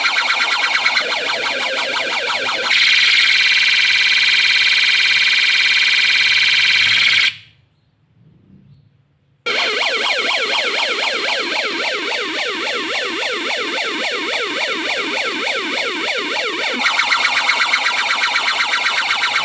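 Electronic siren sound module switching between its tones: a rapid warbling alarm, then a steady high tone that cuts off about seven seconds in, two seconds of near silence, then a fast rising-and-falling siren that changes to another pulsing alarm pattern near the end.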